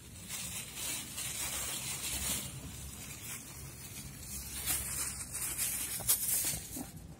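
Plastic bag of dry cat food rustling in irregular crinkly bursts, over a steady low rumble.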